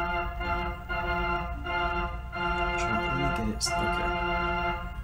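Background music of sustained organ chords, the held notes changing every second or so.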